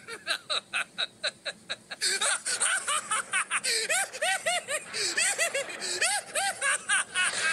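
A man laughing in a long run of short "ha" syllables. The laugh is quicker and lighter at first and grows louder about two seconds in, each syllable arching up and down in pitch.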